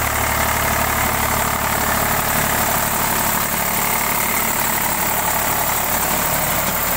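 Eicher tractor's diesel engine running steadily as it pulls a cultivator through the soil.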